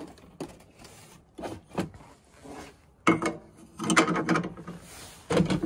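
Irregular clanks, knocks and rattles of a wheel and metal parts being handled and fitted onto a portable generator's steel frame, loudest in a cluster about three to four and a half seconds in.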